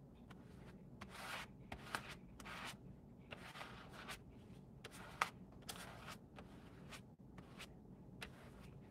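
Plastic Bondo spreader scraping green acrylic paint across paper in a series of short, faint strokes, about one a second, with one sharp tap about five seconds in.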